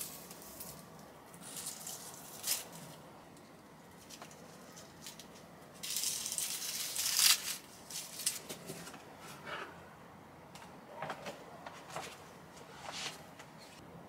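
Scattered rustling and light clicks from something being handled at close range, with one longer rustle about six seconds in.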